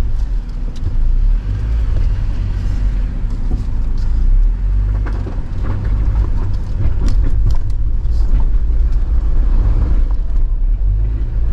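2022 Jeep Wrangler JL climbing slowly on a rocky trail: a steady low engine and drivetrain rumble with scattered clicks and knocks from the rocks and body.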